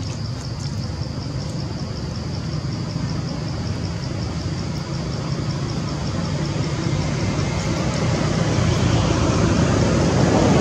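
Steady low rumble of motor vehicle noise that grows louder near the end, with a rapid, evenly pulsing high chirp running throughout.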